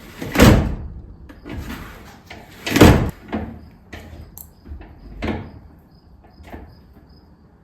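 Louisville drop-down attic ladder being closed and opened: two loud thumps of the hatch panel shutting into the ceiling frame, about half a second and three seconds in, with smaller knocks from the ladder and hinges in between and after.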